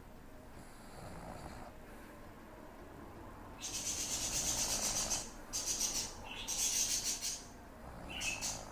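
A sleeping woman snoring and snuffling through her nose: a few faint breaths, then from about a third of the way in four hissing, raspy breaths with a fast flutter. The last one ends in a brief high whistle.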